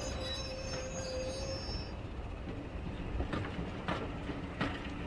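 OO gauge model train coaches rolling past on a curved track: a steady rumble of wheels on the rails, with a thin, steady squeal that stops about a second and a half in, then four sharp clicks in the second half.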